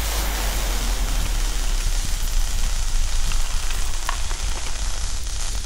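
Logo-intro sound effect of showering sparks: a steady sizzling hiss over a deep low rumble.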